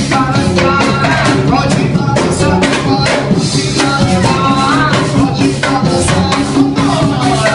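Upbeat band music with drums and percussion keeping a steady beat under a melody line.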